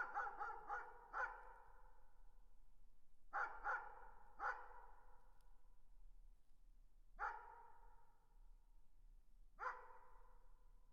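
A distant dog barking in short volleys: four quick barks, then three, then two single barks, each trailing off in a long echo. The barking is faint.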